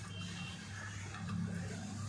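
Quiet background music over a steady low hum.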